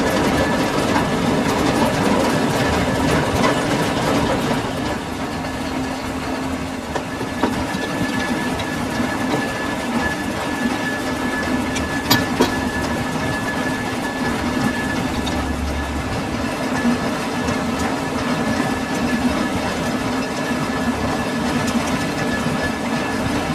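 Metal lathe running steadily, with a constant hum and a thin high whine over dense machine noise; a couple of sharp clicks about twelve seconds in.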